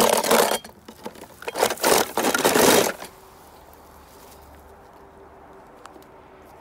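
Die-cast toy cars scraping and clattering against each other and a plastic tub as a hand rummages through them, in uneven bursts for about three seconds, then stopping.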